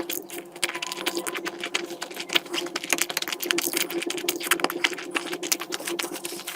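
Close-miked eating: a dense, irregular run of small wet clicks and crackles from chewing and smacking, over a low steady hum.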